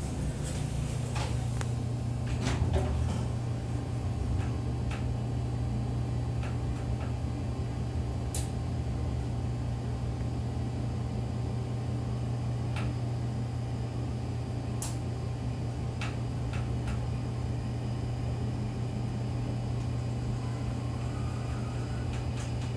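Cab of a 1980s General Oiltronic in-ground hydraulic elevator travelling down: a steady low hum with a few faint scattered clicks.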